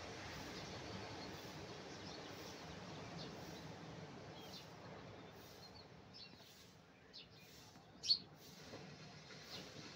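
Small birds chirping: short, high calls scattered through, the loudest about eight seconds in. Beneath them runs a soft, steady background rush that eases off a little after the middle.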